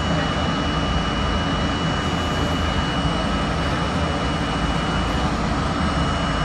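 An R32 New York subway car standing at a station platform with its onboard equipment running: a steady low hum and rumble, with a thin high whine that cuts off about five seconds in.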